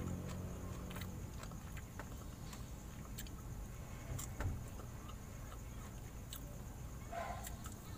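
Faint chewing and wet mouth clicks from a person eating fried chicken by hand, over a low steady hum.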